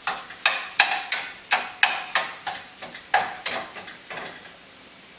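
A utensil stirring and breaking up ground beef in a stainless steel pan: about a dozen quick scraping strokes, roughly three a second, which stop about four seconds in. Under them the browning beef sizzles steadily.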